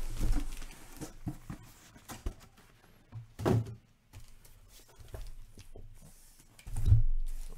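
Cardboard cases being handled and set down on a tabletop: three dull thumps, the heaviest near the end, with light tapping and scraping of cardboard between.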